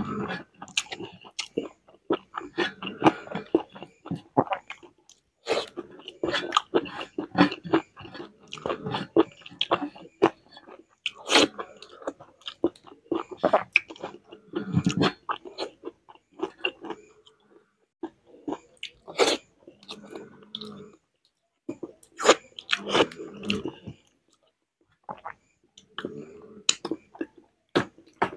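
Close-up chewing and mouth sounds of a person eating rice by hand: irregular wet smacks and clicks with short pauses between mouthfuls.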